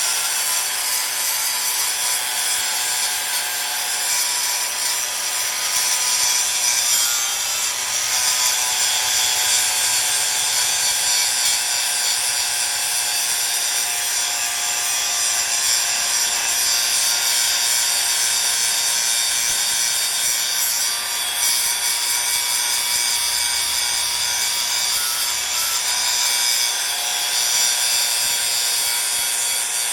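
Power grinder running steadily under load, a harsh grinding hiss over a constant high motor whine, without a break.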